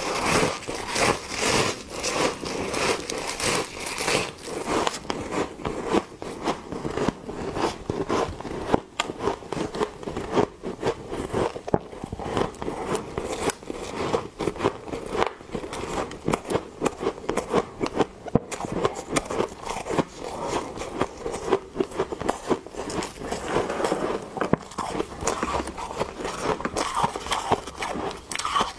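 Close-up crunching of soft freezer frost ice being bitten and chewed: a dense run of fast crackling crunches, sharpest in the first few seconds.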